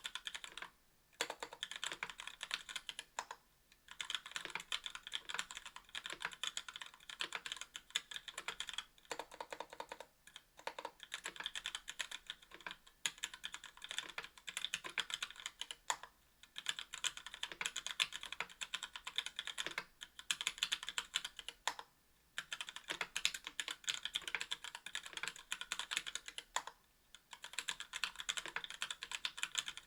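Steady fast typing on a 60% aluminium mechanical keyboard with Gateron Merlot linear switches and GMK keycaps: a dense run of crisp keystroke clicks, broken by brief pauses every few seconds.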